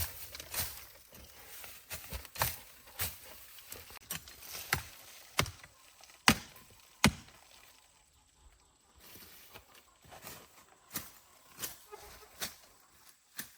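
Irregular sharp knocks of a hand tool striking, roughly one a second, with a quieter gap of a couple of seconds a little past the middle.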